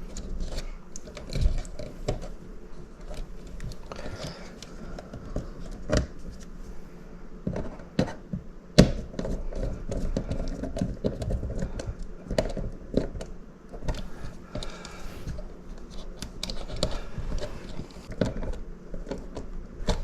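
Handling noise from wiring a thermostat back plate: scattered small clicks, taps and rustles of wires and terminal screws being worked by hand, with one sharper click about nine seconds in.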